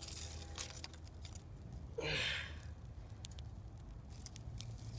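Small tinder-bundle and stick fire crackling with scattered faint ticks as thin sticks are laid on it. About two seconds in comes a short breathy whoosh, the loudest sound.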